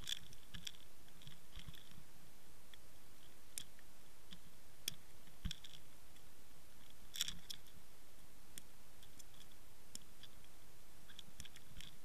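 Underwater sound: a steady faint hiss with short, sharp clicks and ticks at irregular intervals.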